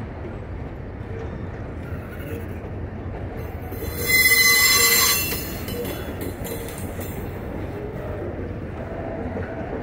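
Freight train of covered grain hopper wagons rolling past with a steady low rumble. About four seconds in, a loud high-pitched wheel squeal rises for a little over a second, then fades back into the rumble.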